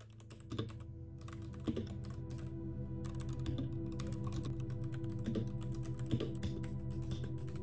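A dense run of quick, irregular clicks over soft ambient music with steady held low tones, gently swelling in at the start.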